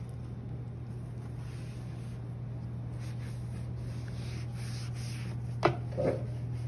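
A sponge wiping clay off the outside of a pottery wheel's tray, in soft repeated rubbing swishes. Two knocks about half a second apart come near the end, over a steady low hum.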